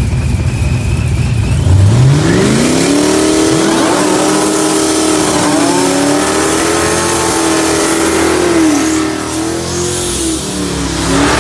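Supercharged LS9 V8 in a New Edge Mustang idling, then revving up about two seconds in and held at high revs, wavering, while the rear tyres spin in a burnout, with tyre hiss over the engine. The revs fall away near the end, followed by one brief rev.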